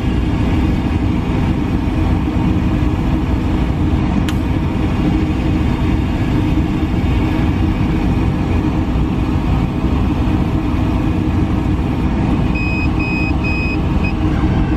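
Aeon Mira 7 CO2 laser cutter running a job on clear acrylic: a steady machine drone. There is a single click about four seconds in, and four short electronic beeps near the end.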